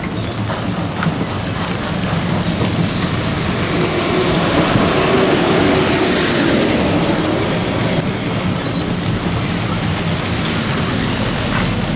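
Steady hiss of tyres on a wet street with traffic, growing louder around the middle.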